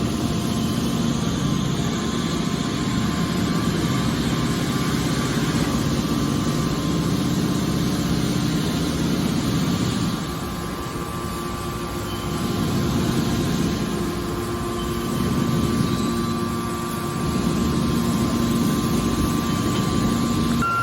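Hydraulic metal baler running: a steady mechanical drone with a low hum, easing off briefly about ten seconds in and again a little later before picking back up.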